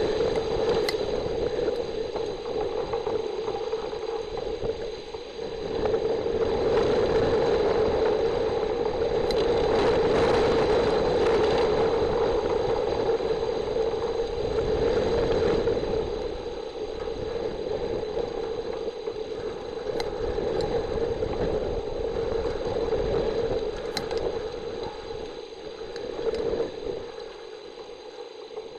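Steady rain pattering on a nest camera's microphone housing, a noisy rattling hiss that swells for several seconds in the middle.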